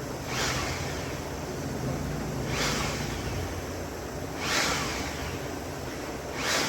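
Homemade turbojet rig running: a steady rush of air and burning gas over a low hum, with a louder whoosh about every two seconds.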